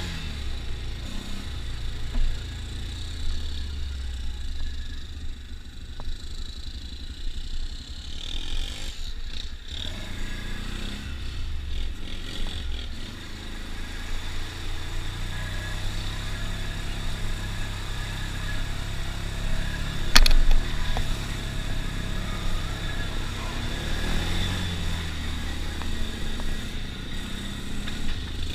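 ATV engine running steadily under way on a dirt trail, with water splashing around the wheels as it fords a creek about halfway through. A single sharp knock about twenty seconds in is the loudest moment.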